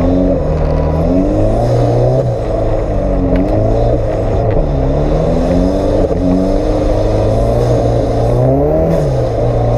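Off-road vehicle's engine working hard on a rough track, its pitch rising and falling every second or so as the throttle is opened and eased, with a few faint knocks from the vehicle bouncing.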